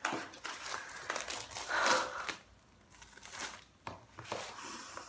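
Packaging crinkling and tearing as it is pulled open by hand. It comes in two spells, with a lull of about a second in the middle.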